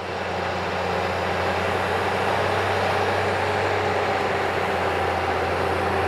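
Crawler bulldozer's diesel engine running steadily under load as it pushes dirt, a constant low drone.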